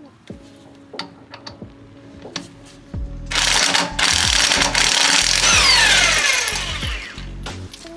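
Impact wrench running on lug nuts for about four seconds during a wheel change, its whine falling as the motor spins down. Scattered clicks of tools come first.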